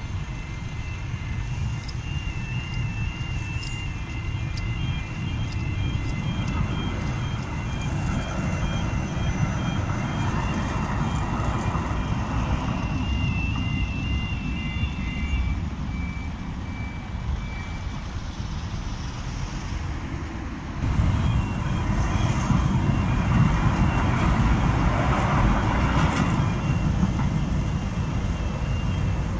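Road traffic running by at a level crossing, a steady low rumble with wind on the microphone. A level crossing warning alarm sounds in pulsed high tones through the first half, and the rumble gets louder about two-thirds of the way through.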